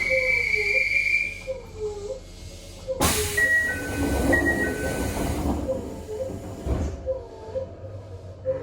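A Toei 5300 series train stands at a station. A steady high tone stops about a second and a half in. About three seconds in, a loud rush of compressed air hisses for nearly four seconds and then cuts off sharply: the train's air brakes releasing before departure.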